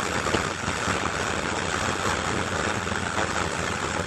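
Ground fountain firework spraying sparks with a steady hiss.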